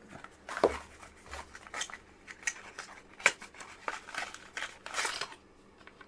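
Cardboard packaging being handled: a string of light taps, scrapes and rustles as a card insert is lifted out of the box, stopping about five seconds in.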